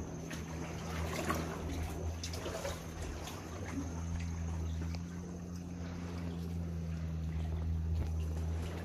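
Water lapping and trickling around a paddled inflatable sea canoe, with small scattered splashes and drips, over a steady low hum.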